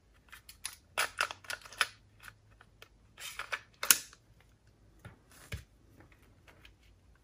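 Plastic clicks and rattles of a cassette walkman being handled on the bench, in clusters about a second in and again around three to four seconds in, with scattered small clicks later and a faint low hum underneath.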